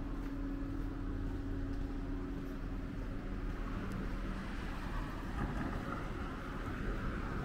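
Road traffic: a steady motor-vehicle rumble, with the tyre noise of a passing vehicle swelling in the second half.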